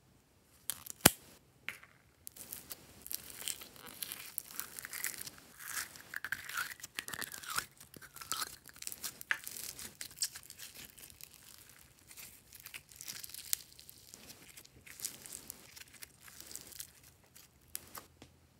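A plastic tub lid clicks sharply about a second in. Then green floam (slime packed with tiny foam beads) crackles and crunches as fingers squeeze and knead it.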